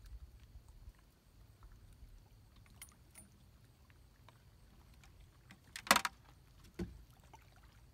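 Trotline being handled over the side of a small fishing boat: faint clicks and rustles over a low rumble, with one sharp knock about six seconds in and a softer thud shortly after.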